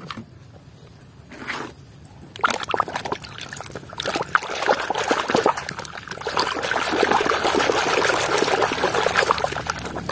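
Muddy water sloshing and splashing in a tub as a hand scrubs a small toy cement mixer truck under the surface. It is fairly quiet at first, then the splashing starts about two and a half seconds in and grows steadier and louder.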